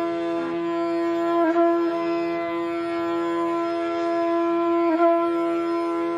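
Bansuri flute music holding one long note, with short ornaments about a second and a half in and again near five seconds, over a faint low drone.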